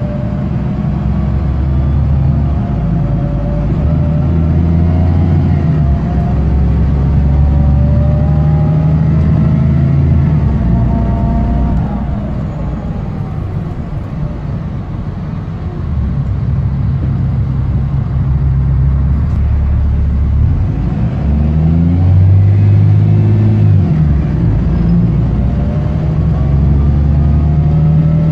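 BMC Condor bus's diesel engine with a blown exhaust, heard inside the bus from the rear seats, pulling and rising in pitch through several gear changes. It eases off about twelve seconds in for a few seconds, then pulls up through the gears again.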